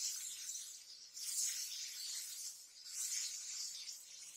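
Yogurt and onion-spice masala sizzling in hot oil in an aluminium kadai, the hiss swelling in two waves as a silicone spatula stirs it, then fading near the end.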